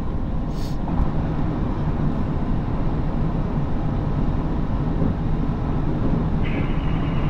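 Steady road and engine noise heard from inside a moving car's cabin at highway speed, a low, even rumble.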